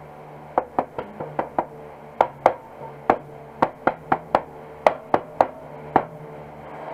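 Hammer tapping around the lid of a metal paint can: about fifteen sharp taps in quick, irregular clusters.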